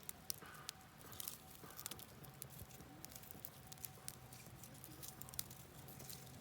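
Wood campfire crackling, with irregular sharp pops and snaps over a faint steady hiss.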